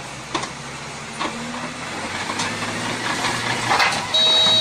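Heavy-equipment engine running steadily, with several sharp knocks, and a steady high tone coming in near the end.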